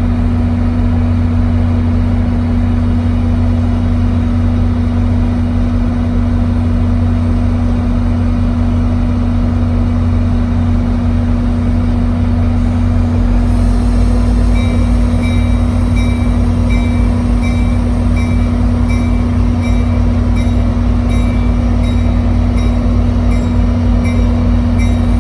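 EMD GP40PH-2 diesel locomotive, its 16-cylinder two-stroke engine idling with a steady low rumble and hum while the train stands ready to depart. About two-thirds of the way in, a ringing tone starts and repeats about once a second.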